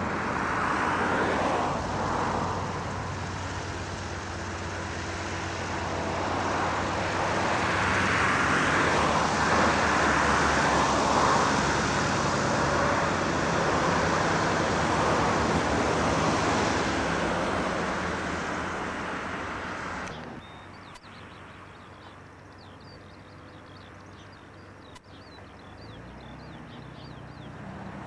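Antonov An-2 biplane's nine-cylinder radial engine and propeller running close by, growing louder toward the middle. About twenty seconds in it cuts off abruptly to a much fainter, distant drone of the same aircraft climbing away after takeoff.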